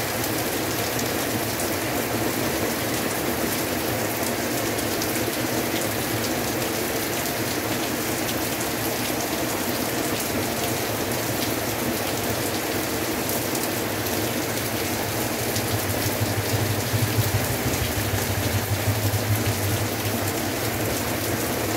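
Heavy rain pouring steadily, a dense hiss of drops hitting roofs and the ground. A low rumble swells for a few seconds near the end.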